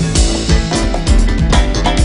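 A live band playing an instrumental stretch between sung lines of a candombe-fusion song. Drum kit, electric bass, keyboard and hand drum are heard, with a steady beat and no singing.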